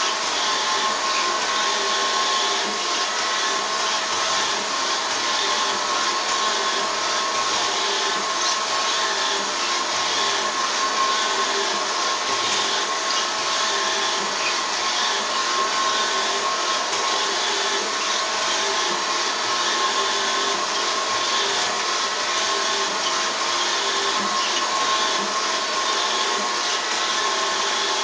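Robot vacuum cleaner running steadily: an even motor whine with a fixed tone over brush and suction noise. It is the robot that keeps cleaning the same spot over and over.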